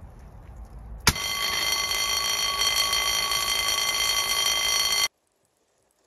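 Sprinkler water flow bell ringing steadily, set off by the flow switch when the pendant sprinkler head opened and water began to flow. It starts abruptly about a second in and stops dead about four seconds later.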